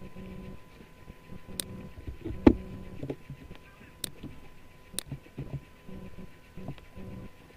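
Computer mouse clicks: a few scattered sharp clicks, the loudest a duller knock about a third of the way in, over a low steady background noise.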